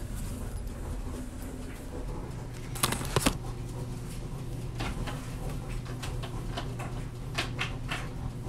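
Handling noise: a few sharp knocks about three seconds in, then scattered light clicks and taps, over a steady low hum.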